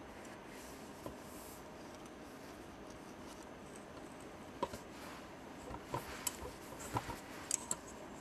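Faint handling sounds of a hairpin lace loom and wooden crochet hook as yarn is worked: a steady low hiss, then a quick run of small clicks and taps starting about halfway through.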